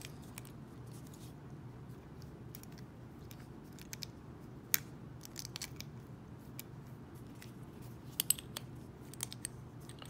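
Small, faint metal clicks and scrapes of a warded pick being probed inside an old Yale warded padlock, with one sharper click about halfway through and a few more near the end; the lock does not open.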